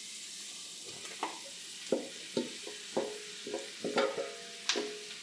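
Butter, oil and onions sizzling steadily in a frying pan as sliced mushrooms are tipped in from a stainless steel bowl. About eight knocks and clinks come from the metal bowl and wooden spoon as the mushrooms are scraped out, several of them ringing briefly.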